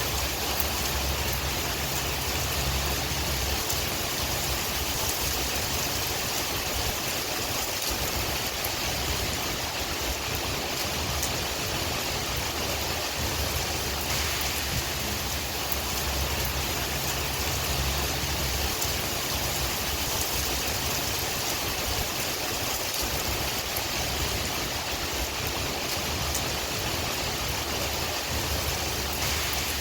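Steady rain with wind: a dense, even hiss with a low rumble underneath and faint scattered drop ticks.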